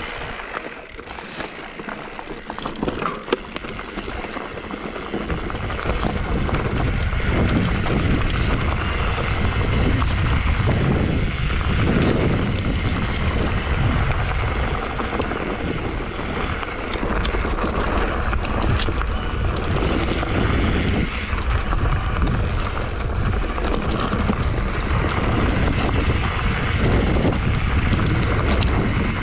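Wind buffeting the microphone, with a low rumble and scattered rattling knocks from riding fast over rough ground. The rumble is lighter for the first few seconds, then steady and loud.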